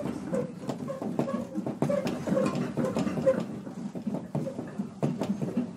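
Commuter train car rattling and creaking as it sways in an earthquake, with many small clicks and knocks and short squeaks running through it.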